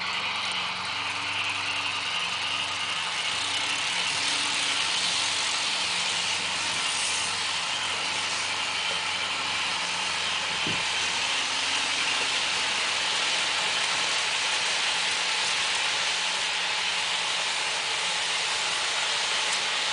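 Märklin model train running steadily over the metal track: a continuous mechanical running noise from the locomotive's motor and wheels, with a single low knock about halfway through.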